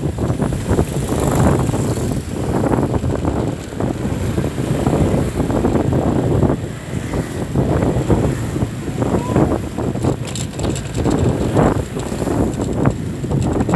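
Road traffic noise with wind buffeting the microphone: a continuous, uneven low rumble.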